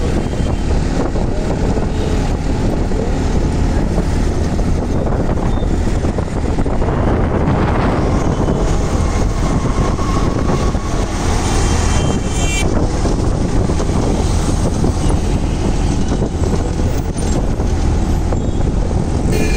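Steady street traffic noise of engines and tyres, overlaid with wind buffeting the microphone.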